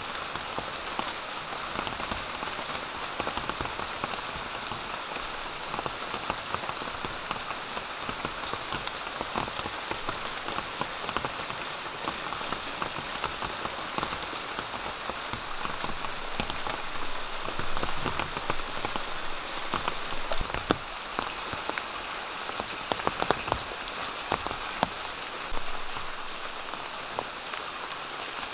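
Heavy rain falling steadily, pattering on surfaces, with scattered sharper clicks and ticks, a few of them clustered in the second half.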